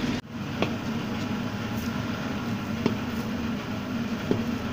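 A knife strikes the iron pan three times in sharp clicks while cutting a firm block of barfi mixture, over a steady mechanical hum.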